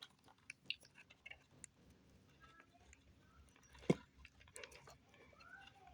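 Faint scattered clicks and taps of hands working the plastic shell off an RC car, with one sharper click about four seconds in.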